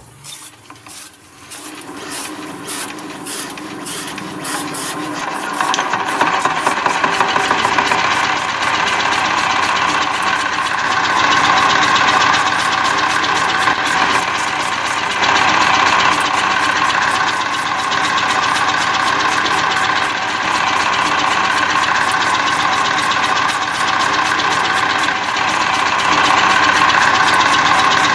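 Small wooden DIY model diesel engine being started: a few slow knocks that quicken, then from about six seconds in a rapid, steady mechanical knocking as it runs, driving a belt-driven miniature chaff cutter that chops grass.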